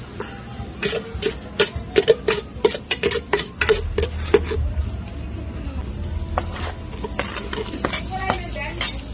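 Metal ladle clinking and scraping against the side of an aluminium cooking pot while stirring, a rapid run of ringing knocks for the first few seconds, then fewer and softer.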